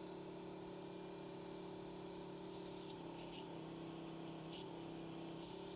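Small electric vacuum pump of a desoldering station's suction pickup running with a steady hum; its pitch sags a little about three seconds in and again a bit later, with a few faint clicks.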